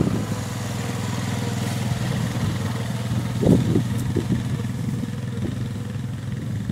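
Honda quad bike's single-cylinder four-stroke engine running steadily at low speed while towing a weed licker, growing slightly fainter as it pulls away. A few brief knocks about three and a half seconds in.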